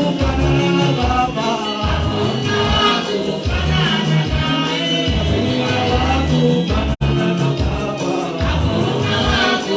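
Live gospel praise and worship music: voices singing over a band with a steady, pulsing bass beat. The sound cuts out for an instant about seven seconds in.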